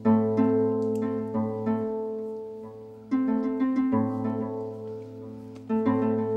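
Background music of plucked string notes, each struck and then fading, a few per second, over a steady low drone.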